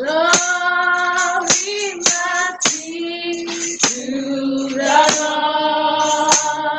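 Gospel worship singing led by a woman's voice, holding long sustained notes, over sharp percussion strikes about once a second.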